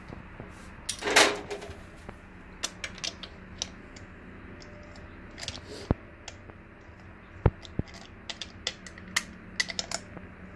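Scattered metallic clicks and clinks of a hand tool, a spark plug socket on an extension, working a spark plug loose and out of a BMW N62 V8 cylinder head, with a louder rattle about a second in.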